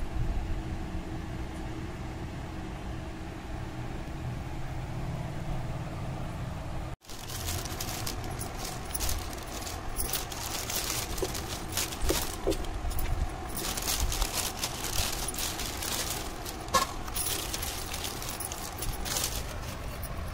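A steady low rumble for about seven seconds, then after a sudden break, a plastic carry bag and packaging rustling and crinkling in irregular crackly bursts as a takeaway food container is handled.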